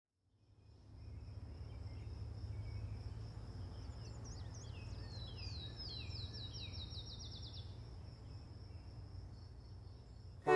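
Outdoor countryside ambience fading in: a steady high insect trill over a low rumble, with a songbird singing a quick run of falling notes from about four to eight seconds in.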